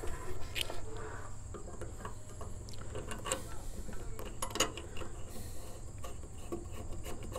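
Light, scattered metallic clicks and small scrapes of fingers working the stud and fittings of a Firestik door-edge antenna mount.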